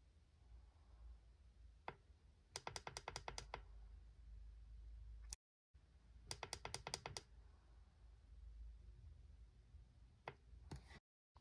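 Streamlight Sidewinder Stalk helmet light's controls clicking as its light modes are switched: two quick runs of about eight clicks, with single clicks between them.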